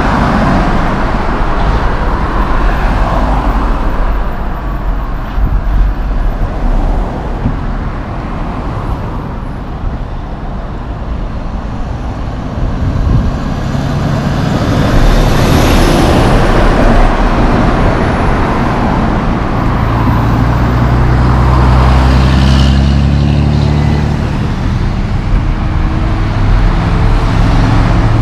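Diesel semi-trucks passing on a highway over steady tyre and traffic noise. Through the second half a truck's deep engine drone is the loudest sound, its pitch shifting near the end.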